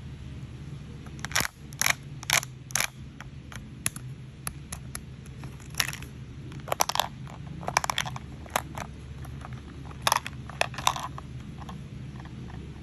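Sharp plastic clicks and clacks of a toy mini vending machine being worked and small toy cans dropping and clattering into its tray, some coming in quick runs. They start about a second in and stop about eleven seconds in, over a steady low hum.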